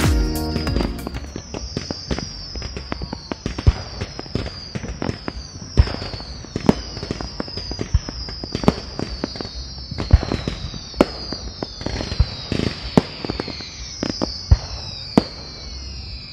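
Fireworks going off: irregular sharp bangs, about one or two a second, under a string of overlapping high whistles that fall in pitch.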